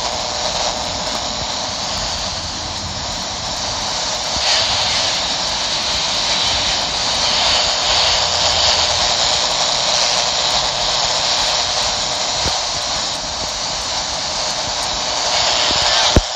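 Uniden handheld CB radio's speaker hissing with steady open-squelch static on channel 19, swelling a little now and then. A sharp click near the end, as the channel changes to 18.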